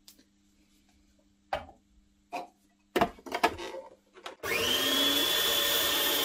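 A few plastic knocks as the pusher goes into the feed tube, then a food processor motor switching on about four seconds in. It spins up quickly and runs steadily with a high whine while it mixes flour, butter and milk into pastry dough.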